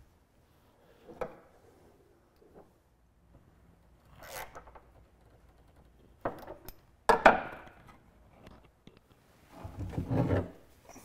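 Wood-and-tool handling sounds while a small turn button is screwed on beside a hatch opening: scattered clicks and short scrapes, then a sharp knock about seven seconds in. Near the end, a rubbing scrape as the walnut grate hatch is slid across the deck.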